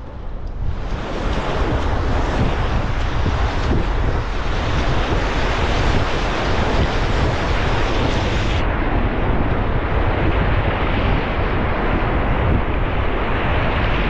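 River whitewater rushing loudly around a packraft running a rapid; the rush builds in about a second in, then holds steady.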